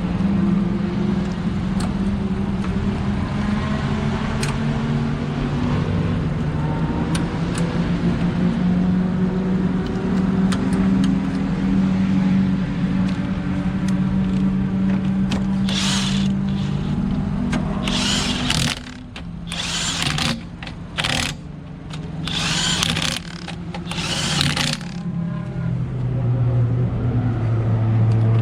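A steady low machine hum, then, past halfway, a string of short, loud bursts of power-tool noise with brief gaps between them.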